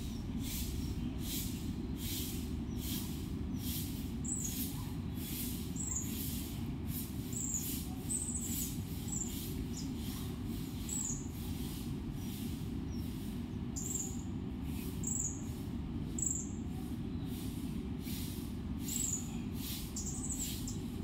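Steady low rumble of background noise with a faint high pulsing about twice a second, and short high bird chirps every second or two.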